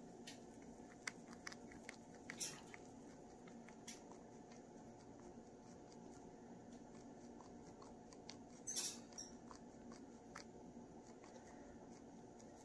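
Chinchilla nibbling and chewing a stalk of Timothy hay: faint, quick crunching clicks, with louder ones about two and a half seconds in and near nine seconds, over a low steady hum.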